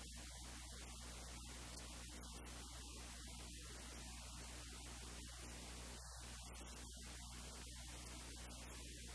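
Steady electrical mains hum under a constant hiss.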